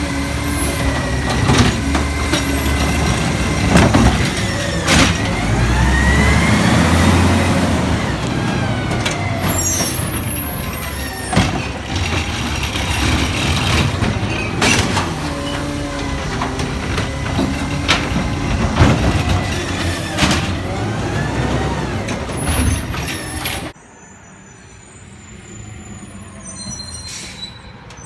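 Garbage truck running at close range, with repeated metallic clanks and knocks and air-brake hiss. The sound drops off suddenly near the end.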